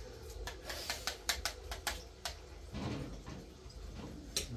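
A quick series of about eight sharp clicks or taps over two seconds, then a soft rustle and one more click near the end.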